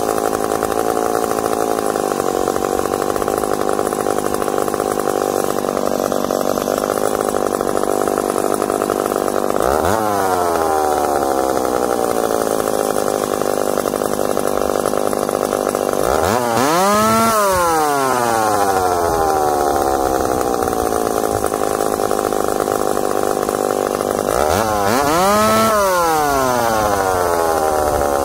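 Ported McCulloch Super Pro 70 two-stroke chainsaw idling, then revved three times: a short blip about ten seconds in, then two full revs. Each time it winds down slowly back to idle, which the owner puts down to the saw's heavy flywheel, crankshaft and clutch rather than an air leak.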